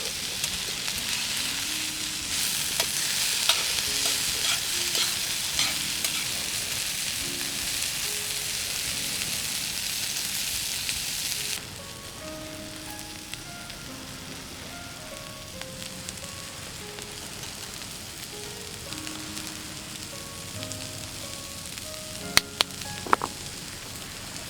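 Food sizzling and frying in metal camp cookware over a fire. The sizzle is loud at first and drops abruptly about halfway through, and there are a few sharp clicks near the end.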